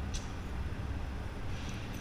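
Yamaha XTZ 250 Ténéré's single-cylinder engine idling steadily through a Roncar 2Way aftermarket exhaust, with a low, uneven thump. There is a light click just after the start.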